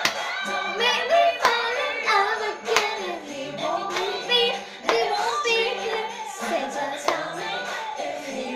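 A girl singing along with a pop backing track, her voice gliding between sustained notes over a steady low accompaniment, with sharp handclaps about every one to two seconds.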